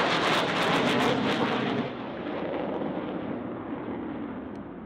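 Jet noise from an F-15E Strike Eagle's twin turbofan engines as it passes low and close, loud and crackling for about two seconds. It then drops off sharply and fades, duller, as the jet flies away.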